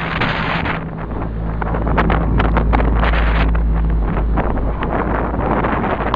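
Wind buffeting the microphone, a loud rushing noise with scattered crackles and a heavy low rumble from about one to four seconds in.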